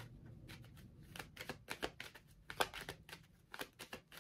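A deck of tarot cards being shuffled by hand: a faint, irregular run of short card snaps and flicks, several a second.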